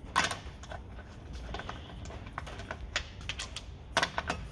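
Metal clicks and clinks of a hand-held socket turning wheel bolts into an alloy wheel hub, with louder knocks about a quarter second in and again near the end.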